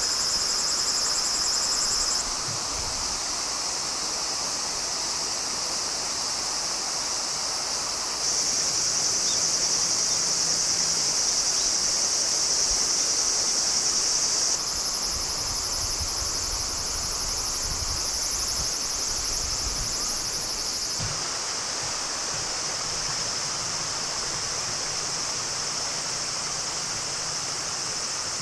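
Autumn crickets and other insects chirring in a steady high chorus over the rushing of a river. The chorus and the water change abruptly in pitch and loudness several times.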